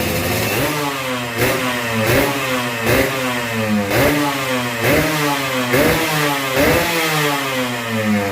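A freshly rebuilt Yamaha RX-King two-stroke single-cylinder engine is running and being revved in repeated short throttle blips, about once a second. Each time the pitch rises quickly and falls back.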